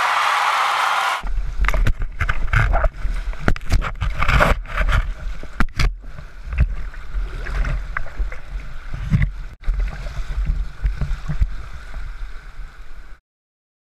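Whitewater rapids rushing and splashing right at a helmet-mounted action camera. After an even hiss in the first second come irregular low rumbles and knocks. The sound cuts off suddenly shortly before the end.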